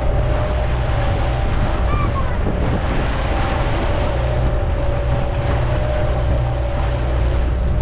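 Water rushing and churning in a sailing catamaran's wake, with wind buffeting the microphone and a steady low hum underneath.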